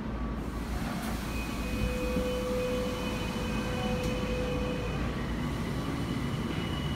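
Tokyo Metro subway train running, heard inside the car: a steady low rumble, with thin steady whining tones coming in about a second in.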